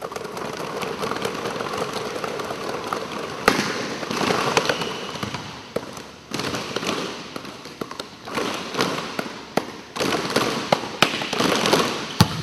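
Many basketballs being dribbled at once on a hardwood gym floor: a dense, uneven patter of bounces that eases off briefly twice.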